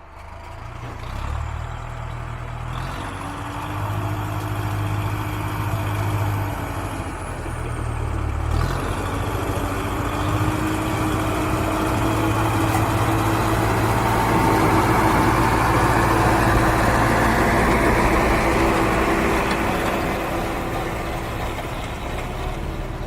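Tractor engine running with a low, steady rumble. There is an abrupt break about eight and a half seconds in, where the recording changes, and then the sound builds to its loudest about two-thirds of the way through before easing off near the end.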